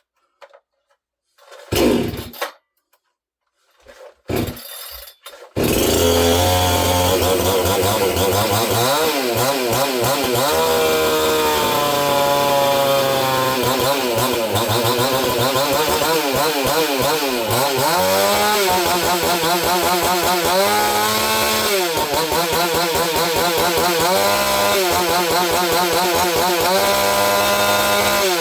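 Neotec 68cc two-stroke chainsaw being pull-started: two short bursts, then it catches about five and a half seconds in. It then runs loud, revved up and let back to idle over and over.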